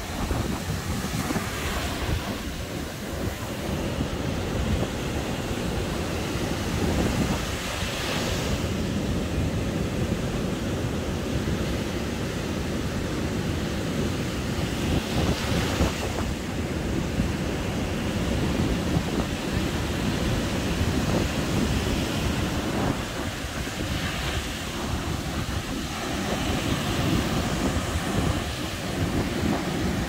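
Sea surf breaking and washing up a sandy beach as a continuous rush, swelling each time a wave breaks, about every eight seconds. Wind buffets the microphone, adding a low rumble.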